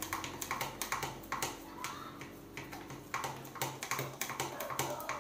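Rapid, irregular clicking and tapping of a utensil against a container as a slime mixture is stirred.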